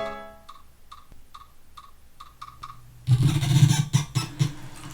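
Instrumental break in a pop-rock song. A held chord dies away, then comes a run of short, clipped notes. About three seconds in, the full band with drums comes back in.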